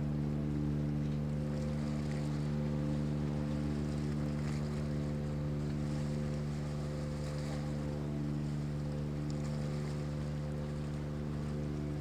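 Steady low drone of a ship's diesel engine, a hum of several even tones, over a light hiss of wind and water.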